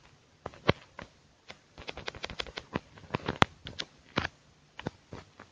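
Light, irregular clicks and taps of fingers on the smartphone and of the phone being handled, picked up by its own microphone, with a quick flurry of taps in the middle.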